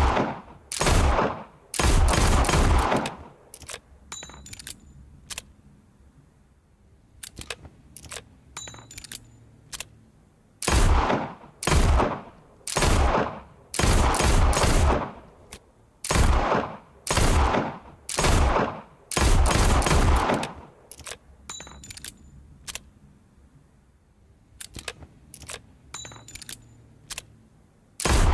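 Revolver gunshots fired about one a second, each with an echoing tail, in a short run at the start and a longer run in the middle. Between the runs there are long stretches of quiet clicking.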